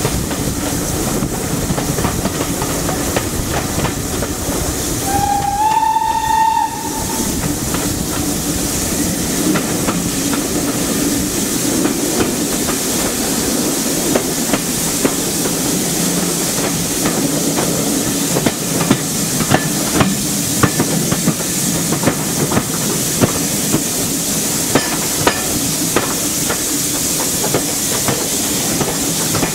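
Steam-hauled train heard from an open carriage window, with steady running noise throughout. About five seconds in, a BR Standard Class 9F steam locomotive's whistle blows once, a short note lasting about a second and a half that steps up slightly in pitch. In the second half, sharp clicks of the carriage wheels over the rail joints.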